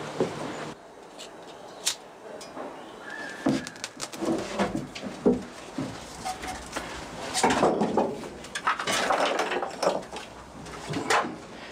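Pieces of firewood knocking and clattering as they are handled and loaded into a steam locomotive's firebox during firing up. Scattered single knocks, with a longer run of rattling and scraping about two-thirds of the way through.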